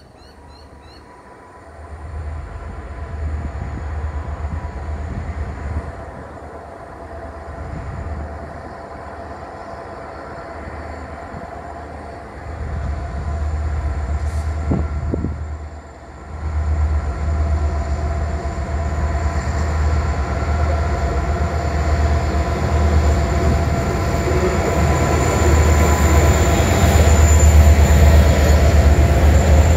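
Two diesel locomotives hauling an empty coal train approach and pass close by. A low engine rumble with steady whining tones grows steadily louder and is loudest near the end as the locomotives go past.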